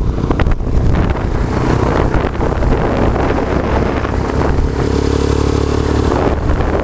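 Motorcycle running at highway speed, its engine hum under heavy wind buffeting on the microphone. The engine note steadies about two-thirds of the way in.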